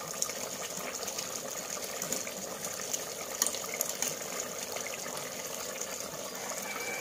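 Steady hiss of chicken curry simmering in an open aluminium pot on a gas stove, with a steel ladle clinking lightly against the pot a few times as it is stirred.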